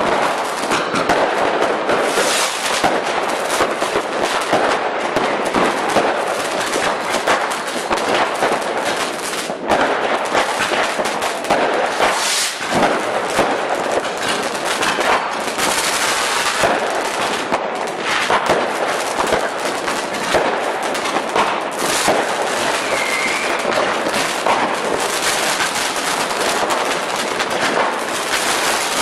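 Firecrackers going off in a dense, continuous crackle of many small rapid bangs, with no pause.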